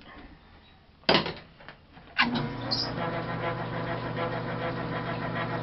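A sharp clunk about a second in. Then the South Bend lathe starts with a knock just after two seconds in and runs with a steady electric-motor hum.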